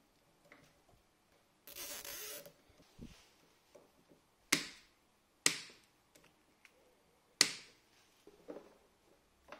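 A nylon cable tie is pulled tight through its ratchet with a short zipping rasp, then side cutters snip the tie tails three times with sharp clicks, the loudest sounds here.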